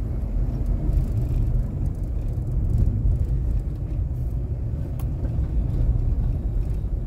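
Steady low rumble of a car driving, its engine and road noise heard from inside the cabin, with one faint click about five seconds in.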